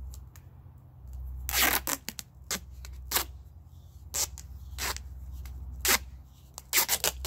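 Duct tape being pulled off the roll and wrapped around a paintbrush handle taped to a broom handle, in a string of short rips and crackles over a low steady hum.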